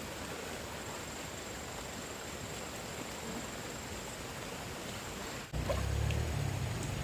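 Steady rushing of a flooded stream, with a faint thin high whine over it. About five and a half seconds in, it cuts off abruptly to a louder low rumble.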